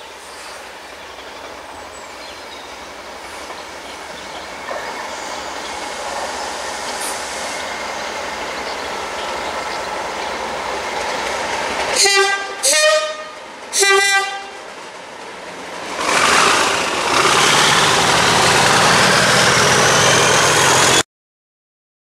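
Yellow-fronted locomotive approaching with a growing rumble, then sounding its two-tone horn in three short blasts: low, high, low. It then passes close with a loud rush of engine and wheel noise and a faint rising whine. The sound cuts off abruptly near the end.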